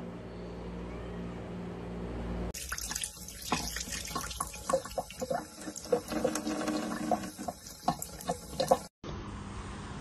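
A low steady hum, then from about two and a half seconds in a kitchen faucet running a thin stream of water into the sink, with many quick wet clicks as a cat laps at the stream. It cuts off suddenly just before the end.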